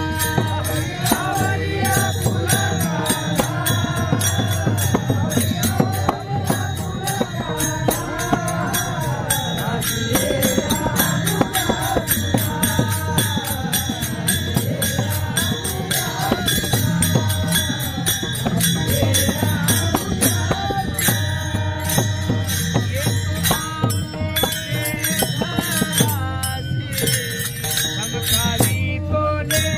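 Men singing a Marathi gavlan, a Varkari devotional song, to many pairs of brass taal hand cymbals struck together in a steady, quick rhythm.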